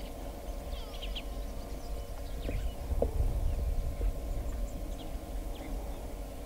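Elephants drinking at a waterhole: a few soft knocks and splashes near the middle, over a steady low rumble and hum, with faint bird chirps now and then.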